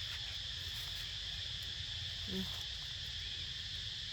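A steady, high-pitched chorus of insects such as crickets, with one short voice-like call about two seconds in.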